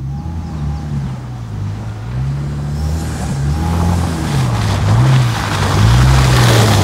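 2024 Toyota Tacoma pickup's engine running under load off-road, its note rising and falling as the throttle changes. It grows steadily louder as the truck approaches.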